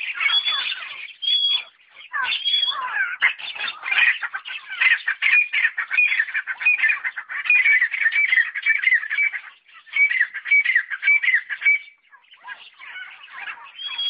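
Partridges (teetar, francolins) calling continuously: a dense stream of quick, falling squeaky notes, with a repeated rhythmic call running through the middle and brief pauses.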